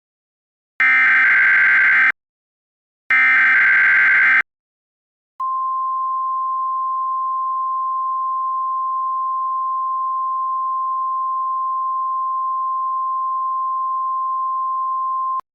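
Emergency Alert System SAME header: two harsh digital data bursts of just over a second each, a second apart. After a second's pause comes a single steady alert tone near 1050 Hz, the National Weather Service attention signal, held for about ten seconds and cut off sharply.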